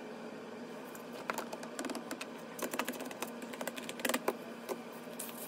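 Light, irregular clicks and taps as a grout float is pressed and tapped against a freshly laid sheet of ceramic penny tiles bedded in thinset. The clicks come in small clusters from about a second in until about four seconds in.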